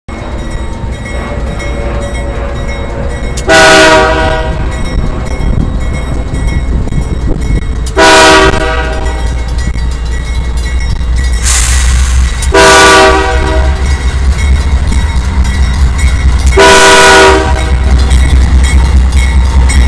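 Two Canadian Pacific GE AC4400CW diesel locomotives running light, their engines rumbling louder as they approach and pass. The multi-note air horn sounds four blasts about four seconds apart, each lasting under a second.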